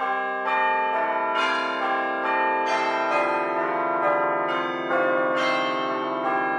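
Music of overlapping, sustained bell-like chimes, the notes changing about once a second; no drilling is heard.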